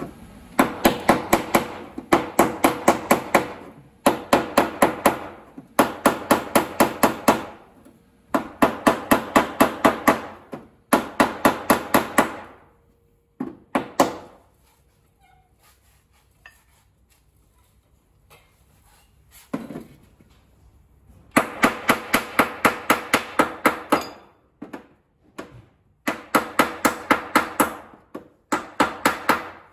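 Body hammer striking the steel rear fender lip of a Mazda RX-7 FC against a dolly held behind it, in fast runs of about five or six ringing metallic blows a second separated by short pauses, with a longer pause in the middle. The blows are raising the rolled-in fender lip back out.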